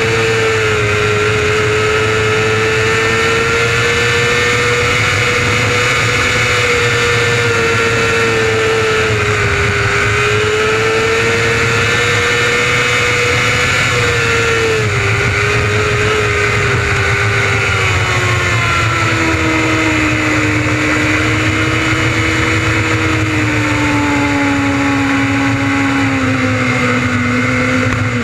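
600cc micro sprint's motorcycle engine running hard at high revs, its pitch rising and dipping slightly. Through the second half the revs fall steadily as the car slows.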